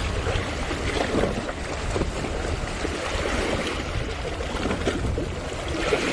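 Sea waves washing against shore rocks, with strong wind rumbling on the microphone.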